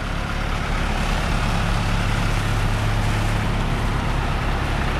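Diesel truck engine idling with a steady low hum, over an even hiss.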